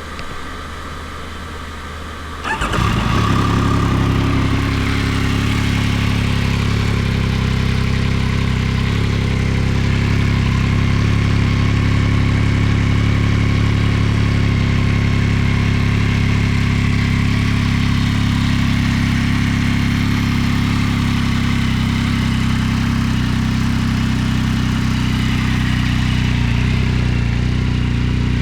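Yamaha MT-09 inline-three engine breathing through a full-system titanium Akrapovič exhaust. After a low steady hum it starts about two and a half seconds in, then settles into a loud, steady idle.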